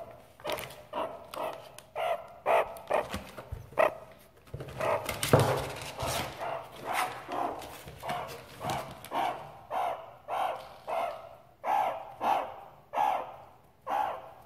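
Meerkats giving short, repeated calls, about two a second, with a louder rustling thump about five seconds in.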